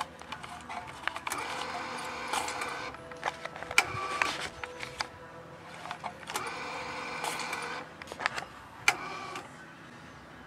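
Banknote acceptor of an automated fuel-pump payment terminal drawing in paper banknotes. Its motor whirs in three runs of about a second and a half each, with sharp clicks in between.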